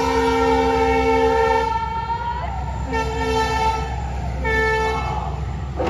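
Pepa, the Assamese buffalo-horn pipe, blowing held notes in a Bihu husori performance: one long blast of about two seconds, then two shorter ones around three and four and a half seconds in, with a singing voice and a steady low drum rumble underneath.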